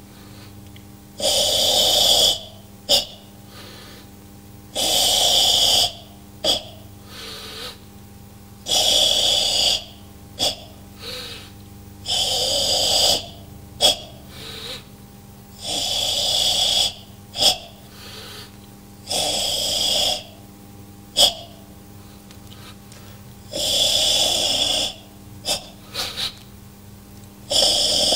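A karateka's forceful ibuki breathing in Sanchin kata: a long hissing exhalation about every three and a half seconds, each followed by a short sharp sound, over a steady low hum.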